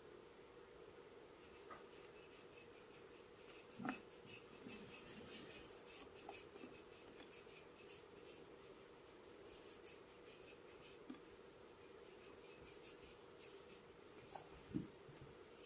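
Faint rubbing and scratching of massage strokes on skin, with two soft knocks, about four seconds in and near the end, over a steady low hum.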